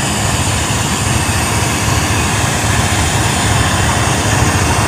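Diesel-electric locomotive idling at the head of a standing passenger train: a loud, steady low engine rumble under a broad hiss.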